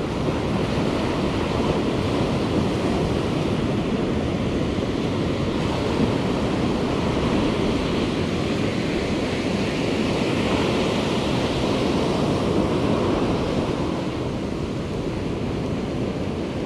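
Ocean surf breaking and washing up a sandy beach, a steady rushing that swells and eases, with wind buffeting the microphone.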